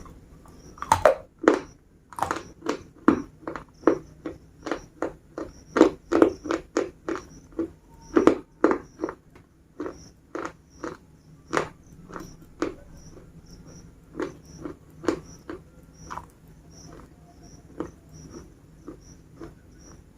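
Dry biscuits being bitten and chewed close to the microphone: a run of sharp crunches, about two a second, that thin out and grow softer after about twelve seconds.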